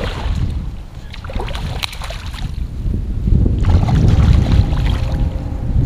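A hooked bass splashing at the water's surface as it is reeled up beside a kayak. Wind rumbles on the microphone, getting louder about halfway through.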